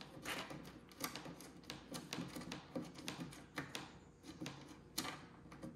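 Light, irregular clicking and ticking of a screwdriver and a small screw being worked out of the bottom panel of a Nakamichi 600 cassette deck.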